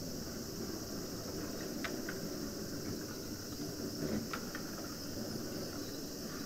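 Steady outdoor ambience: a high, even hiss over a low rumble, with a few short light clicks or knocks, two close together about two seconds in and two more past four seconds.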